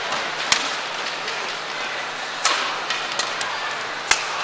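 Badminton rackets striking the shuttlecock during a rally: three sharp cracks about two seconds apart, with a few fainter ticks between them, over the hall's steady background noise.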